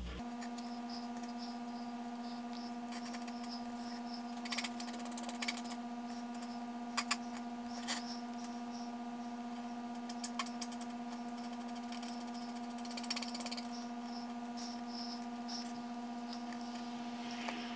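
Felt-tip burning marker scratching and tapping on a paper stencil over a wooden block, in short scattered strokes, over a steady hum.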